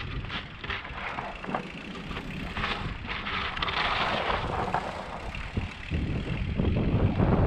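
Mountain bike riding a rough dirt trail: the bike knocks and rattles over the ground, with a longer scraping hiss about three seconds in. Wind rumbles on the microphone from about six seconds in.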